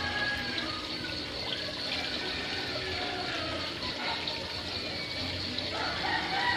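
Steady running, trickling water in a goldfish aquarium.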